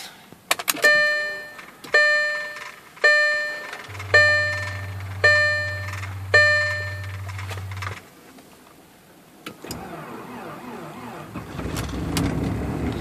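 Audi instrument-cluster warning gong chiming six times, about once a second, each chime fading, while the cluster asks for the clutch pedal to be pressed to start the engine; a steady low hum runs under the middle chimes. From about ten seconds in, the 1.8-litre turbocharged four-cylinder cranks and starts at −20 °F, growing louder toward the end.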